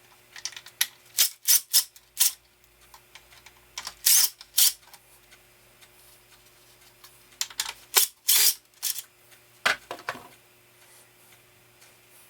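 Irregular sharp clicks and knocks from hands and tools working on the band saw's small parts, coming in scattered clusters.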